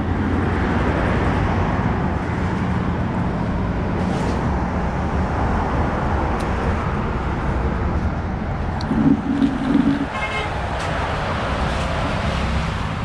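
Roadside traffic noise, with a steady low engine hum. A few brief, louder pitched sounds stand out about nine to ten seconds in.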